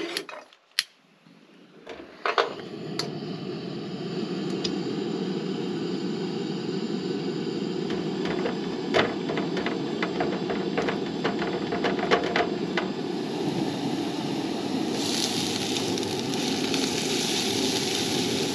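A two-burner camp stove is lit: a click, then about two seconds in its burner flame starts running steadily. A spatula taps and scrapes in a nonstick frying pan of diced onions, and in the last few seconds the onions start sizzling as the pan heats.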